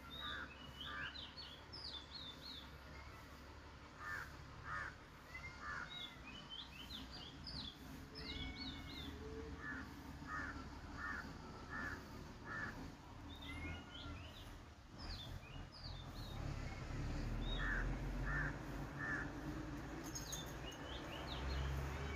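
Birds calling in the background: series of three to five short harsh calls in a row, with higher chirps in between, over a low rumble that grows louder in the last few seconds.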